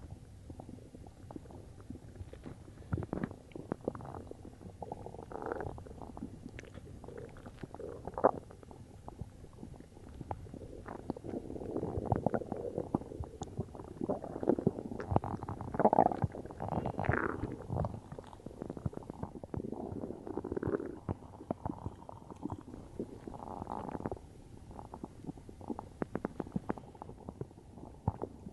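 Human stomach gurgling and rumbling after drinking cola: a long run of short bubbling gurgles and crackles, busiest and loudest in the middle stretch.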